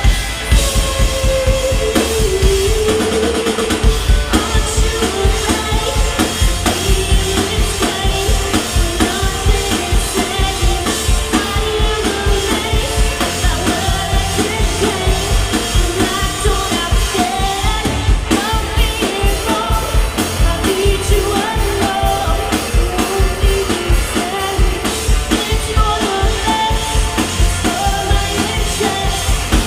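Live indie rock band playing loudly, with a sung lead vocal over a drum kit keeping a steady beat.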